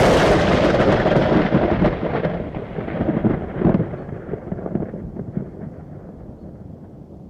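Thunderclap from a lightning strike: it breaks with a sudden sharp crack, then rolls on as a rumble with a couple of swells, fading over about five seconds.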